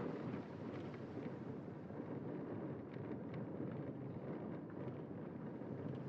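Steady rushing wind noise on the microphone, an even low roar without a tune, with a few faint high ticks about halfway through.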